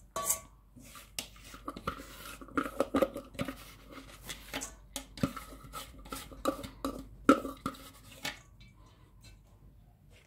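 A plastic spatula scraping and knocking coarsely ground wet beans out of a plastic food processor bowl into an enamel basin, in irregular scrapes and knocks that die away about eight seconds in.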